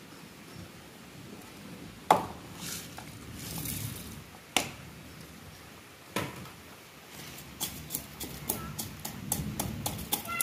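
Wooden pestle pounding whole spices (peppercorns, garlic, cardamom) in a wooden mortar: a run of short knocks, two to three a second, starting about two-thirds of the way in. Before that come three single sharp knocks with some rustling between them, as the spices are tipped into the mortar.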